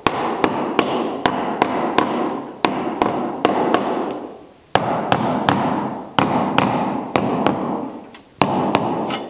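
Hammer tapping a tight-fitting new wooden plank end into its epoxied scarf joint on a boat hull to seat it. A steady run of sharp knocks, about three a second, each ringing on briefly, with two short pauses.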